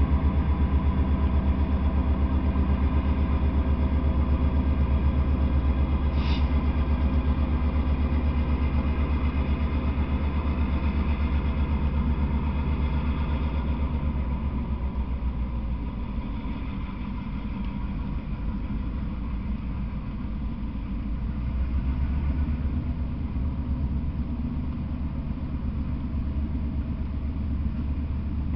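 Freight train of boxcars rolling past, with a diesel locomotive engine running steadily underneath. The engine drone weakens about halfway through, leaving mostly the rolling train.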